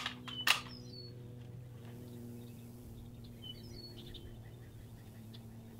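A few short, faint bird chirps over a steady low hum, with a couple of light clicks near the start.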